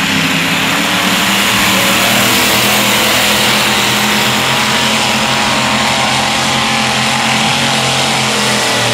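Competition pulling tractor's engine running loud and fairly steady, its pitch wavering slightly.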